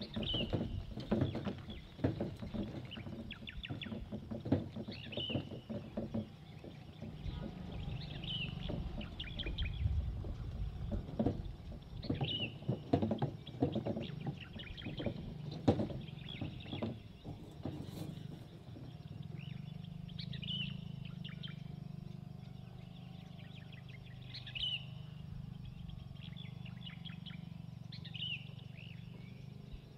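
A bird chirping in short calls every few seconds over a steady outdoor background. Irregular clicks and knocks run through the first half or so and die away.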